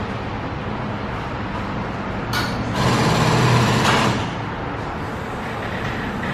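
A burst of compressed air hissing for about a second and a half, starting sharply a couple of seconds in, over a steady low shop hum.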